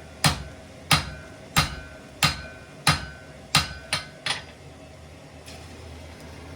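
Blacksmith's hammer striking metal on an anvil: eight ringing blows, about two-thirds of a second apart, the last two coming quicker. After that the blows stop and a steady low rush is left.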